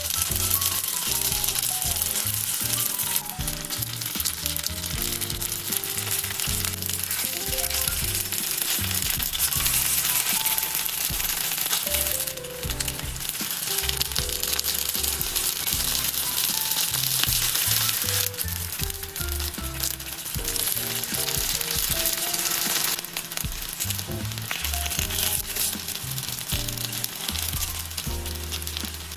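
Rice-paper-wrapped tofu and chive rolls sizzling steadily as they fry in oil in a pan, under light background music.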